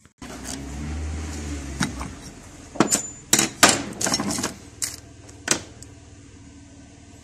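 A series of sharp metallic knocks and clicks, about seven spread over a few seconds, over a low steady hum. They sound like hand tools striking and handling metal engine parts.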